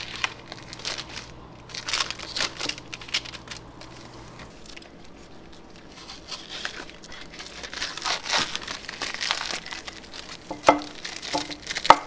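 Plastic shrink-wrap sleeve, heat tape and sublimation paper crinkling and tearing as gloved hands peel them off a hot, freshly sublimated mug. It comes in irregular bursts, busiest near the start and again late on, with a sparser stretch in the middle.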